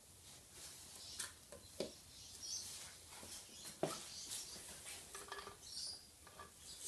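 Birds chirping faintly in the background, with scattered light knocks and clicks from someone moving about on a concrete garage floor; the sharpest knock comes just before four seconds in.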